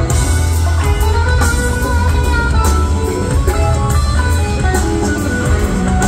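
Rock band playing live: electric guitars playing melodic lines over bass guitar and drums, with a heavy bass.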